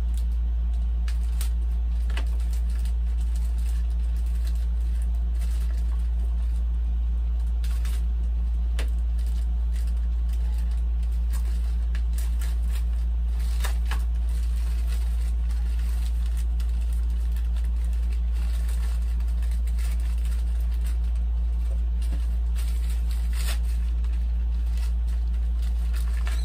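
Clear plastic bags crinkling and rustling in bursts as foam model-plane parts are taken out of them, over a steady low hum that is the loudest sound throughout.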